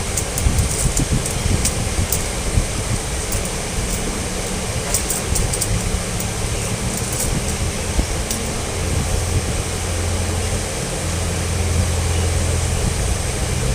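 A steady low machine hum and rumble. The drone grows stronger about two-thirds of the way through, with a few faint clicks on top.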